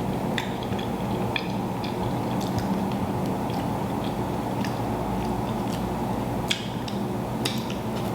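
Close-up chewing and eating of seafood boil in garlic butter sauce, with scattered small mouth clicks and smacks over a steady low background hum.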